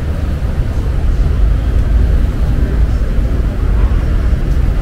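City street ambience: a steady, loud low rumble of traffic.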